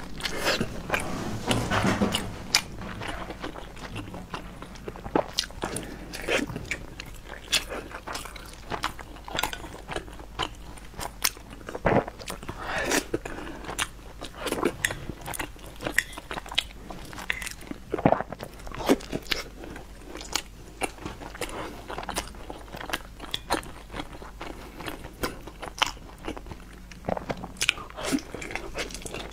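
A person biting and chewing crunchy fried food: a dense, irregular run of sharp crunching clicks.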